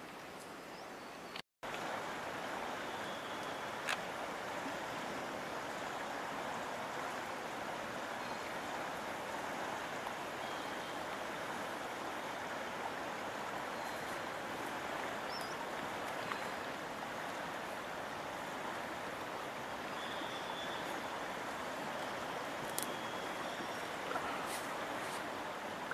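Steady outdoor rushing noise, with a few brief faint high chirps and the odd click. The sound cuts out completely for a moment about a second and a half in.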